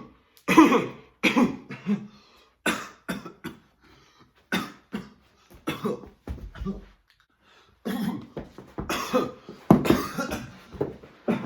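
A man coughing in a long fit, the coughs coming in clusters with brief pauses between them: an acted smoker's cough.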